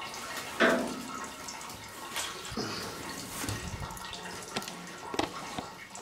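Soapy water in a semi-automatic washing machine's wash tub splashing and sloshing as a heavy quilt is pushed down into it, with one loud splash about half a second in and smaller splashes after.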